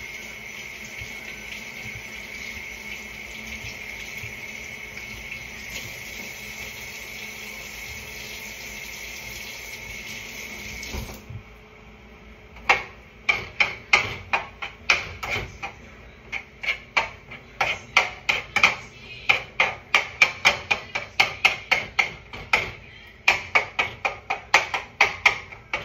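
Kitchen tap running into the sink, shut off about eleven seconds in. Then a utensil repeatedly knocking and scraping in a pot on the stove, several sharp clicks a second.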